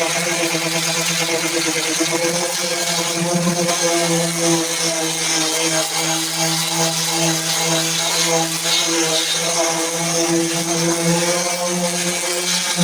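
Power sander running steadily against a car's body panels, a constant motor hum under a coarse sanding hiss.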